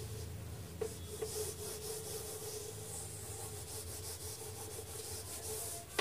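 Handheld eraser scrubbing a whiteboard clean in quick back-and-forth strokes, a steady rubbing hiss. A short knock comes at the very end.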